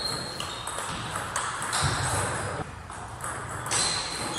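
Table tennis rally: the plastic ball clicking back and forth off the rubber paddles and the table.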